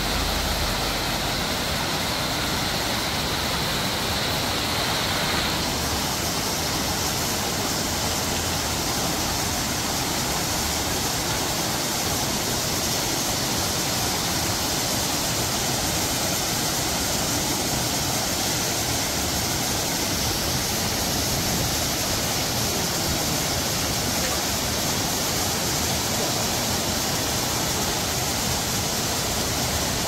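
Waterfall on the Töss river, water pouring steadily over a wide weir into a pool: an even, unbroken rushing of falling water. Its tone shifts slightly about five seconds in.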